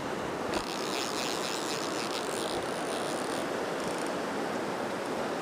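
Fast river water rushing steadily over rocks. From about half a second in, for roughly three seconds, a fly reel's click-pawl drag ratchets rapidly as the bull trout pulls line off it.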